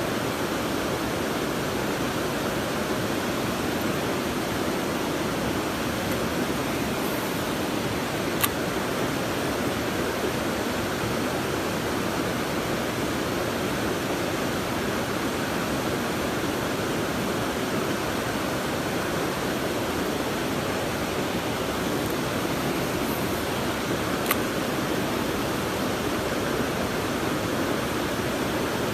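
Steady rush of fast-flowing stream water, even and unbroken, with two brief faint clicks far apart.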